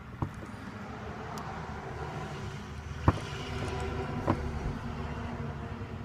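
Steady engine hum of a passing motor vehicle, building toward the middle and easing off, with three short sharp clicks from a hand grease gun being worked at the nose of a chainsaw bar.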